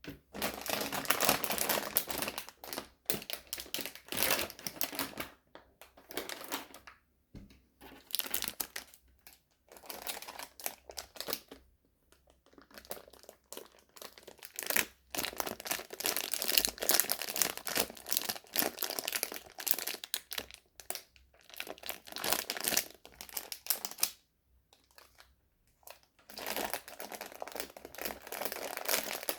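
Sweet wrappers crinkling as they are handled, in bursts of several seconds broken by short pauses.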